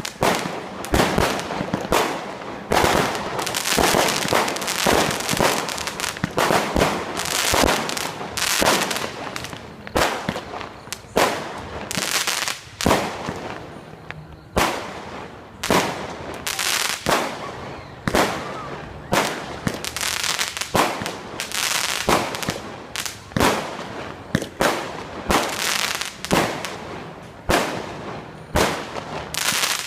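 New Year fireworks display: a continuous, irregular barrage of sharp bangs, several a second, each with a short echoing tail, easing off briefly about halfway before carrying on.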